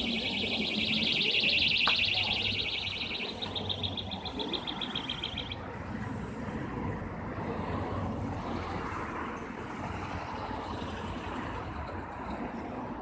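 Traffic passing through a city intersection, cars and a pickup truck going by. For the first five or so seconds a loud, rapid, high trilling chirp sounds over the traffic, then stops abruptly.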